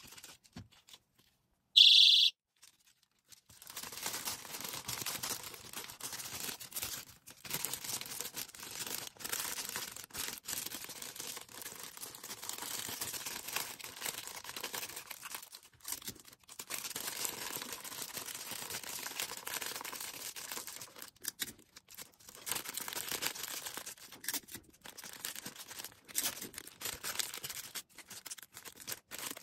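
A personal safety alarm keychain sounds once, a piercing high-pitched tone about half a second long, about two seconds in. After that comes order-packing noise: packaging rustling and crinkling as it is handled, with a few short pauses.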